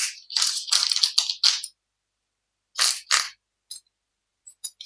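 Tarot cards being handled and a card drawn from the deck: a quick run of short papery swishes and scrapes in the first second and a half, two more about three seconds in, then a few light ticks near the end.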